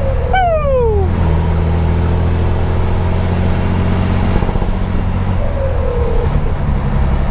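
Scania 112 truck's six-cylinder turbo diesel heard from inside the cab, running steadily under way. Its note steps to a new pitch about a second in and again near the end. A short falling tone sounds just after the start, and a fainter one near the end.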